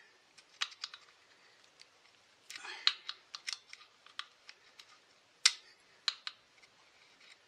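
Needle-nose pliers clicking and scraping against a twisted wire and small metal parts in a chainsaw's carburettor compartment. The sharp clicks come in bunches, thickest about three seconds in, with the loudest single click about five and a half seconds in.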